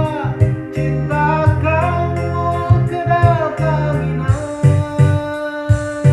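A singer's voice carrying a melody over keyboard and drum backing; the voice stops about four seconds in, leaving the keyboard chords and a steady beat.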